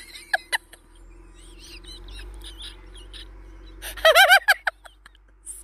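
A woman laughing hard at her own story: a few short laughs, then a mostly breathless stretch with faint squeaks, then a burst of high-pitched, quavering laughter about four seconds in, and a falling squeal at the end.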